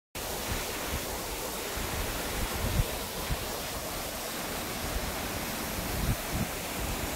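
Steady rushing of a mountain waterfall pouring into a pool, an even hiss with a few low thumps on the microphone, the sharpest near the middle.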